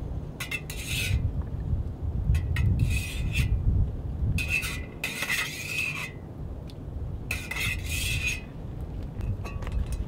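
Metal cutlery scraping and stirring inside a metal camp mug, in repeated bursts with a ringing metallic clink. A low wind rumble runs underneath.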